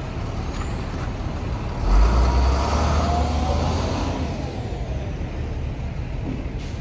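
Heavy road vehicle passing: a deep engine rumble swells about two seconds in, with a high whine that climbs and then falls, before the rumble slowly fades.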